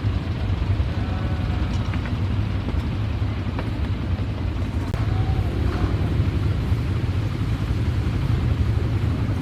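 Steady low rumble of a motor vehicle running, with no sudden events.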